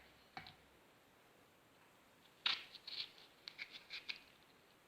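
Knife slicing lengthwise into a lemon: a single short click near the start, then after a quiet pause a run of short, crisp cutting clicks and scrapes for about two seconds.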